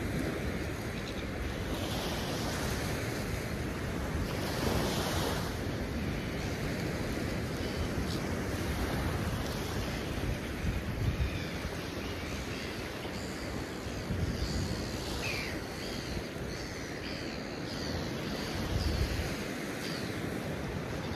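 Surf breaking and washing on a sandy beach, a steady rushing wash that swells a few times, with wind buffeting the microphone as a low rumble.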